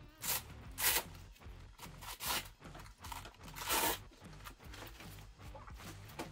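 Hook-and-loop (Velcro) straps on a nylon plate carrier being ripped apart and pressed shut as it is put on: several short tearing rasps, the longest about four seconds in. Background music runs underneath.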